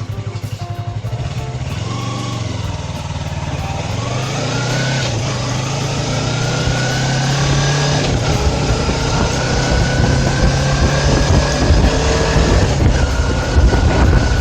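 Yamaha YZF-R3's parallel-twin engine pulling away from a steady idle and accelerating through the gears: the engine note rises, drops back at each upshift (about three times) and rises again, with wind noise building as speed increases.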